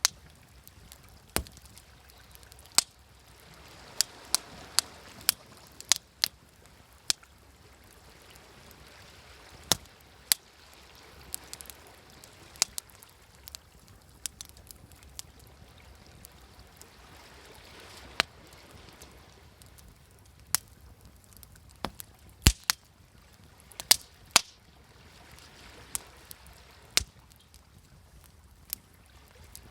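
Wood fire crackling, with sharp pops at irregular moments, over the soft wash of waves that swells and fades every several seconds.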